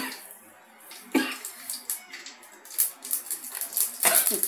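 Mustard seeds spluttering in hot oil in an aluminium kadai: scattered pops at first, turning into dense crackling about four seconds in.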